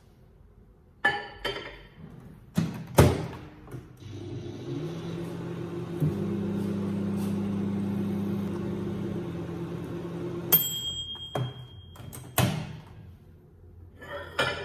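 A few sharp clicks and knocks, then a small electrical appliance humming steadily for about six seconds. The hum stops with a click and a high beep about ten seconds in, followed by a few more knocks.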